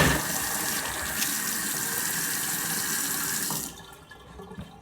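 Kitchen tap running into a sink while utensils are rinsed under it; the water is shut off about three-quarters of the way through.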